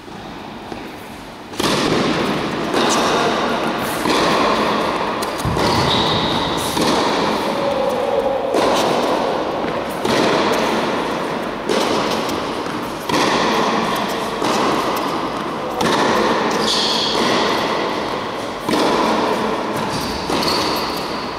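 Tennis ball struck back and forth in a rally, each racket hit a sharp pop with a long echo in the large indoor hall, about one hit every second and a half. A few short high squeaks come in between the hits.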